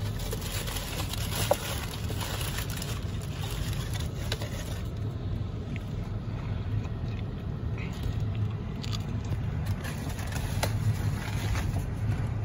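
Steady low hum inside a car cabin, from the car idling in stopped traffic, with a few faint clicks.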